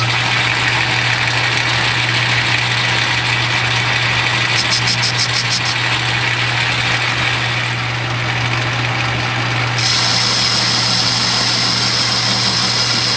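Metal lathe switched on and running steadily, its motor and gearing humming, while a boring bar cuts a recess inside the bore of a metal workpiece. A brief run of fast ticks comes about five seconds in, and a higher-pitched cutting hiss joins near the end.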